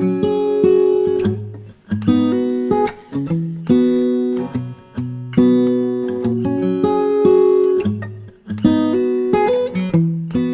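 Background music: acoustic guitar playing strummed and plucked chords, each one ringing out and decaying before the next.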